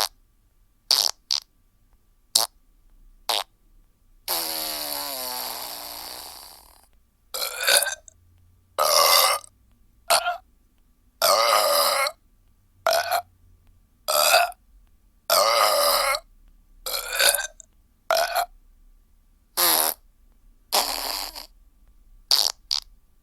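A string of recorded burp sound effects played one after another with short silences between. First come a few short, sharp sounds, then one long burp of about two and a half seconds that wavers in pitch about four seconds in, then about a dozen shorter burps of around a second each.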